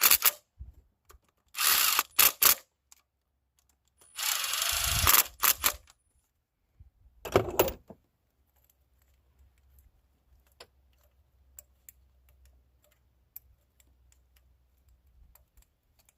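Handheld power tool whirring in three short bursts, the middle one the longest at about two seconds, as parts are taken off the engine bay. Faint light clicks and taps follow.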